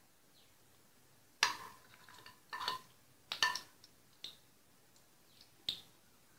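Steel spoon tapping against a non-stick kadai as ghee is knocked off it into the oil: about six light metallic clinks spread over several seconds, each ringing briefly.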